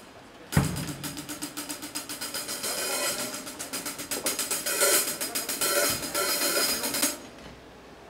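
Rock drum kit played live: a fast, driving beat with crashing cymbals, hi-hat and snare. It comes in with a loud hit about half a second in and cuts off abruptly about seven seconds in.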